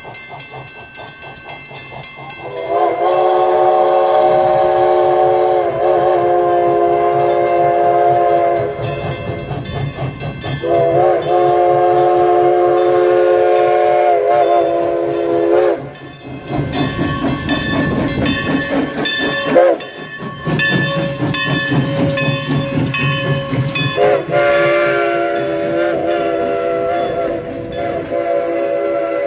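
A train sounding a chord signal of several notes together: two long blasts, then a third beginning near the end, with the rumble of the train between them.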